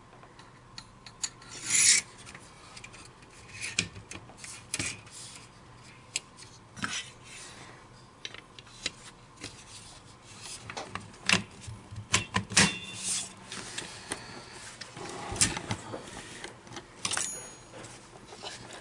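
AK-47 parts clicking, sliding and scraping against each other as the rifle is reassembled by hand, with the dust cover pressed back onto the receiver. The sound is a string of scattered clicks and short metal scrapes, with a quick run of sharper clicks a little past the middle.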